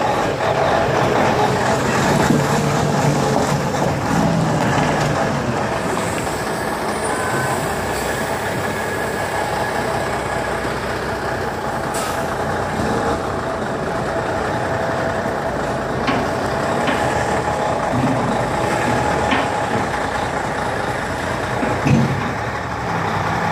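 Cummins N14 diesel of a Freightliner FLD semi truck running at low speed as the rig rolls slowly past close by, pulling a loaded flatbed trailer, with a few short sharp ticks over the steady engine sound.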